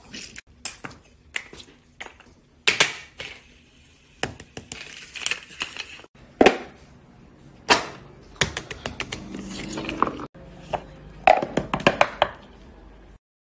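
Fidget toys being handled: irregular sharp clicks and taps, some in quick clusters, that stop abruptly near the end.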